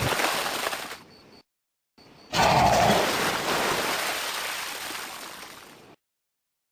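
Two remade Shin Godzilla film sound effects with dead silence between them. A short noisy burst fades within about a second; then a louder rushing, crumbling noise starts about two and a half seconds in, fades away over three seconds and cuts off to silence.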